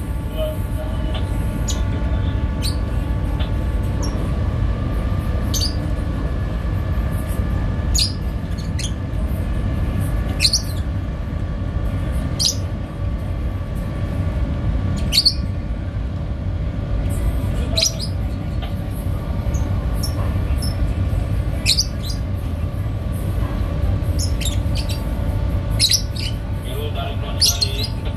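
Harbour tugboat engine running with a steady low rumble and a constant mechanical whine, while small birds give short high chirps every second or two.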